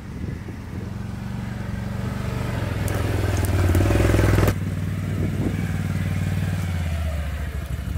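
Quad ATV engine running as the machine is ridden, growing louder up to about halfway through. There the sound level drops suddenly, and the engine carries on running steadily at a lower level.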